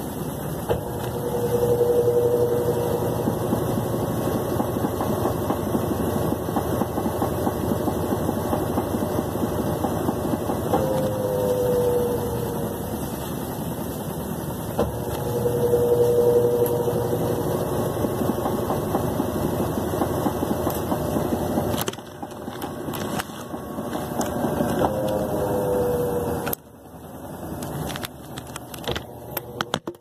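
Brastemp BWL11 top-load washing machine spinning its basket in the spin cycle after the wash, a steady mechanical running with a whining tone that comes and goes several times. The sound drops in level about 22 seconds in and again about 26 seconds in, with scattered clicks toward the end.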